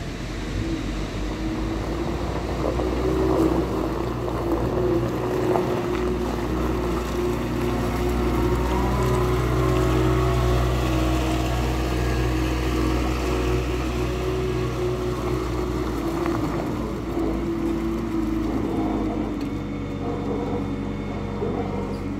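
Caterpillar 908 compact wheel loader's diesel engine running steadily as the machine works, with the engine note shifting a few seconds before the end.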